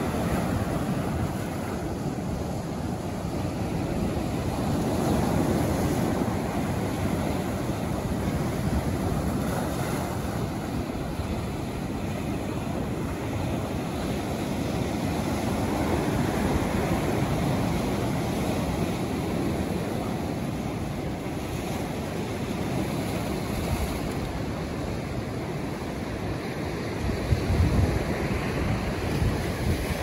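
Ocean surf breaking and washing up a sand beach, a steady rushing wash that swells and eases as each wave comes in. Wind buffets the microphone, hardest near the end.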